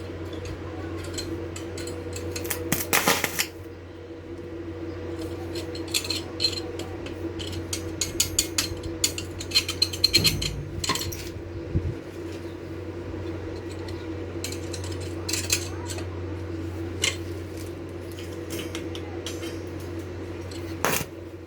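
Steel parts being handled, with repeated metallic clinks and knocks, a dense run of them midway, over a steady machine hum.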